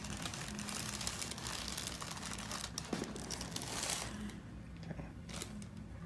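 Paper headrest cover crinkling and rustling under a patient's head as a chiropractor's hands hold and shift her head and jaw, with a faint steady hum beneath.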